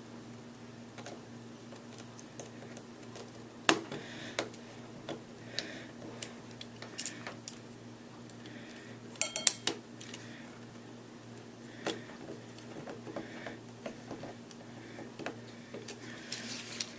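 Small hard parts and screws of a robot arm kit clicking and clattering as they are handled and fastened together, in scattered knocks with a quick cluster about halfway through.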